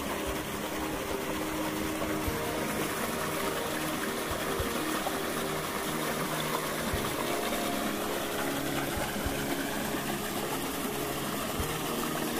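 Small woodland stream rushing over a rocky cascade, a steady gushing of water.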